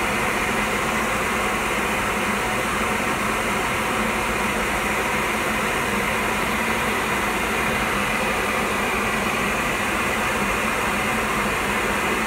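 A wood lathe spinning an acrylic pen blank while sandpaper is held to it, over the steady noise of a dust collector running. The sound stays even throughout, with a faint low hum.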